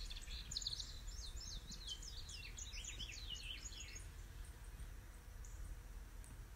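A songbird singing a fast run of high, down-slurred notes for about four seconds, the run dropping in pitch as it goes, then only faint high chirps. A low steady background rumble runs underneath.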